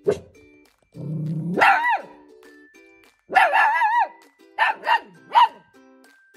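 Samoyed puppy vocalizing: a brief sharp yelp at the start, then a low grunt about a second in that rises into a high, wavering whine-yip. A second wavering yip follows in the middle, then three short yips.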